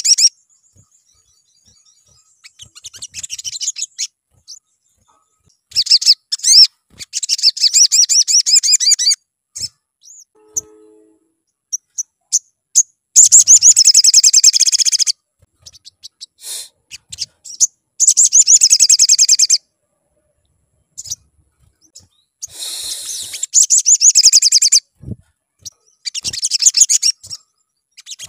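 Male olive-backed sunbird in full song: bursts of rapid, high trilling a second or three long, broken by short silent pauses, about six times.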